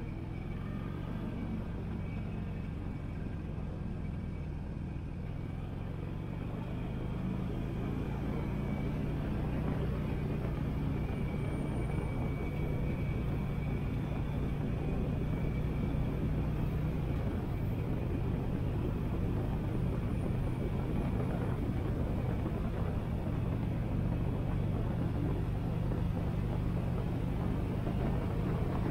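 Harley-Davidson Sportster 883's air-cooled V-twin engine running steadily under way, getting a little louder about seven seconds in.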